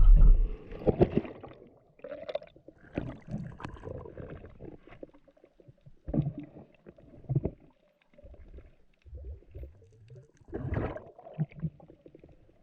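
Irregular sloshing and gurgling of water in uneven bursts, with a few brief knocks.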